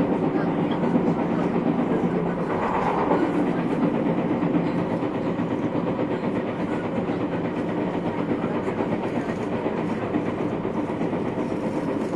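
Running noise heard inside the KuMoHa 221 motor car of a JR 221 series electric multiple unit: a steady rumble of wheels on rail and the car's running gear at speed. A brief higher-pitched sound rises above it about three seconds in.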